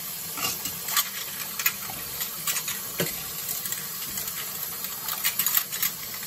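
Water running from a kitchen tap into a stainless steel sink, with ceramic cups and plates clinking and knocking now and then as dishes are handled, several in quick succession near the end.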